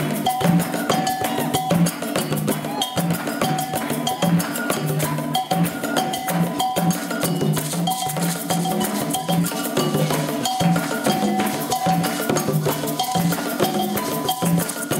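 Group of conga drums played by hand in an Iyesá rhythm, dense interlocking strokes, with a metal bell ringing a steady repeating pattern over them.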